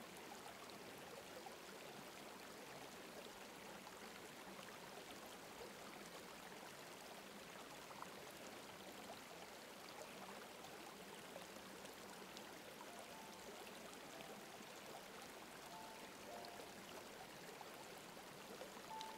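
Faint, steady rush of flowing stream water, a soft nature-ambience bed. A few faint, soft sustained tones come in during the last several seconds.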